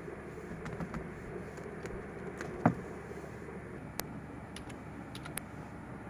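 Steady low room hum with a few scattered light clicks and one sharper knock a little under three seconds in.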